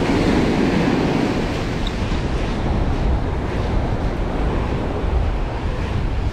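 Ocean surf: a wave breaking near the start, then foam washing up and over the sand, with wind buffeting the microphone.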